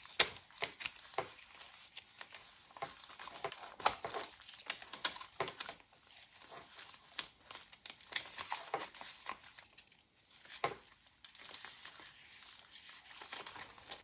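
Paper pages of a handmade junk journal being leafed through: irregular rustling and crinkling of delicate sewing-pattern tissue paper, with a sharp crackle just after the start.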